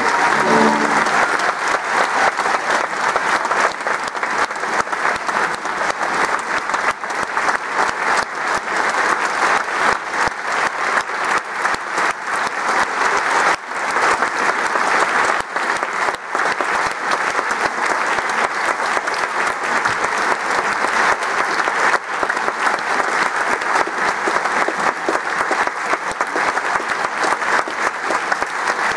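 The last chord of a string orchestra cuts off just after the start, and an audience applauds steadily from then on.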